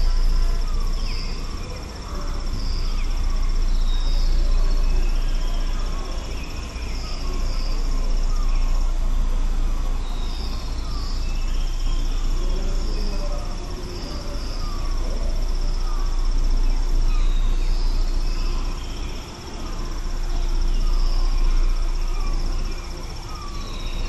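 Countryside ambience of birds and insects: one bird repeats a short falling note about once a second over other scattered bird calls, with a steady high insect drone behind. A low wind rumble swells and eases every few seconds.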